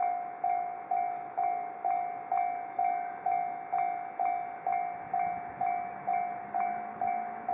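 Japanese level-crossing warning bell ringing, a two-tone electronic 'kan-kan' strike repeating at an even pace of about two a second, each strike fading before the next: the signal that a train is approaching and the barriers are down.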